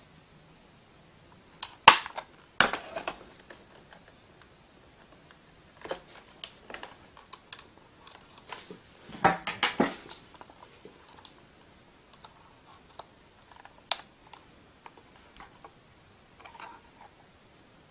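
Irregular handling noises: clicks, taps and knocks of small objects being picked up and set down, with the loudest clatters about two seconds in and again around nine to ten seconds in.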